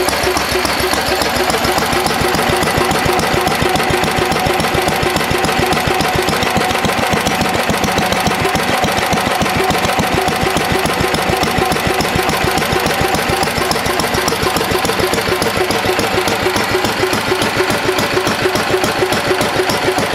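Lister D single-cylinder stationary engine running steadily, its firing strokes making a rapid, even beat that does not change; it is running smooth.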